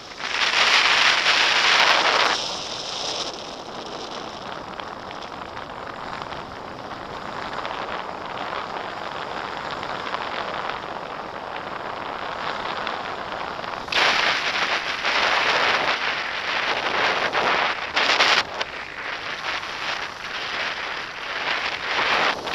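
Wind rushing over the microphone of a pole-held camera in paragliding flight: loud buffeting for the first two seconds or so, a steadier, softer rush through the middle, and loud gusty buffeting again over the last third.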